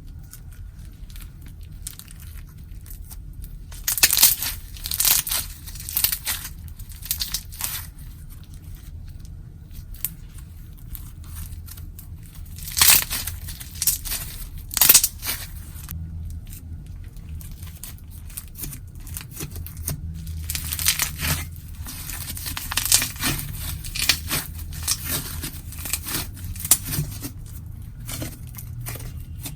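Clear slime being squeezed, stretched and folded by hand, with sticky crackling and popping in three spells: a few seconds in, around the middle, and through most of the last third. A low steady hum runs underneath.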